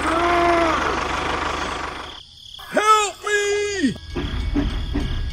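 Cartoon-style voice sound effects: one short high exclamation, then two more close together about three seconds in after a brief hush. A drum beat of background music starts about four seconds in.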